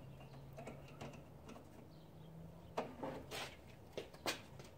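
Several light clicks of plastic push-pin retainer clips being pressed and fiddled at their mounting holes, mostly in the second half.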